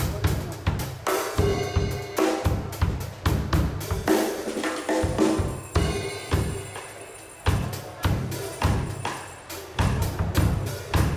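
Pearl Roadshow five-piece drum kit played in a steady beat of bass drum and snare strikes. A little past the middle the hits thin out and ring down, then a loud hit brings the beat back in.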